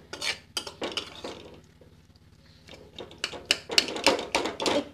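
A spatula stirring and scraping diced potato filling around a wok in quick strokes. There is a short lull about halfway through, then the strokes come again, faster and louder.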